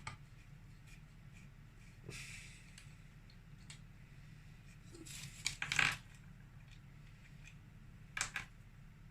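Faint handling noises of hand tools and engine parts: a few short clicks and scrapes, the loudest cluster about halfway through.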